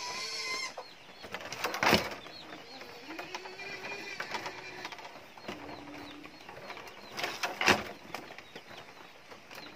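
Thin bamboo strips swishing and scraping as they are bent and threaded into a hand-woven basket, with two sharper, louder strokes about two seconds in and again near the end. Birds call faintly in the background.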